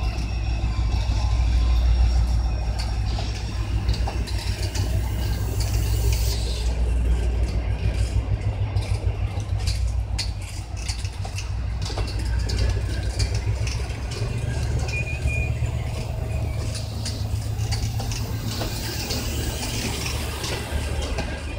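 Passenger coaches of a departing train rolling slowly past, close by: a steady low rumble of wheels on rail with irregular clicks and knocks, and a brief high wheel squeal about 15 seconds in.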